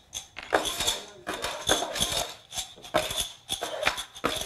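Cups and small pieces clattering on a wooden tabletop: many quick, irregular clicks and knocks as they are handled and set down.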